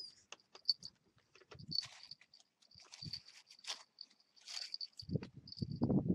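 Puppies wrestling on dirt, with short scuffling clicks and scratches, over a steady high pulsing chirp of crickets. A louder low rumble comes in about five seconds in.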